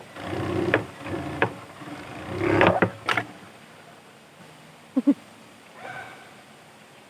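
Industrial overdeck (coverstitch) sewing machine running in two short bursts while stitching a trouser waistband, then two sharp clicks about five seconds in.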